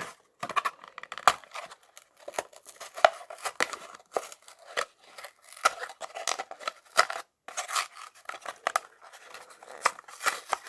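A Matchbox toy car's card-and-plastic blister package being opened: irregular sharp snips, clicks and rustling of cardboard and plastic.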